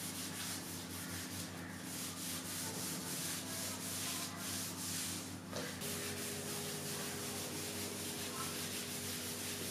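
A rag and hands rubbing a brown wood finish into wood, first over a ribbed surface of wooden dowels and then over a flat top, in repeated back-and-forth wiping strokes about once a second.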